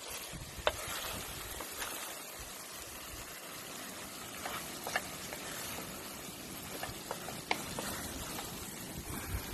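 A pan of shrimp, string beans and squash simmering with a steady faint sizzle, stirred with a wooden spatula that scrapes and taps the pan now and then.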